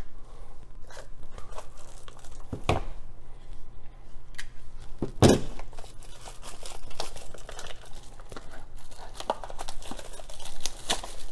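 Plastic shrink-wrap being torn and peeled off a small cardboard card-game box, with irregular crinkling and crackling. A few sharp snaps stand out, the loudest about five seconds in.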